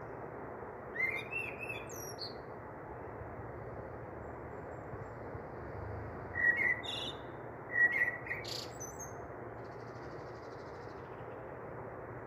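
Small birds chirping: short, quick, gliding chirps about a second in and again twice in the second half, over a steady low hiss.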